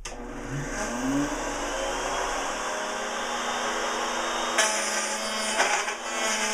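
Porter Cable router in a router table switched on and spinning up with a rising whine, then running steadily. About halfway through, a 5/8 inch straight bit starts cutting a groove in dry pine, adding a harsher, higher cutting noise over the motor whine.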